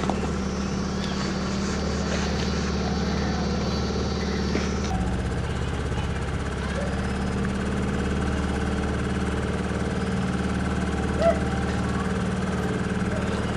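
Boat engine running steadily, an even low drone, as the boat moves along a narrow canal.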